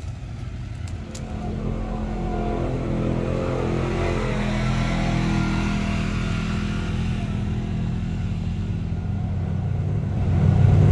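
Jeep engine running and revving as the Jeep crawls over a rough dirt trail; the engine note builds over the first couple of seconds and grows louder near the end.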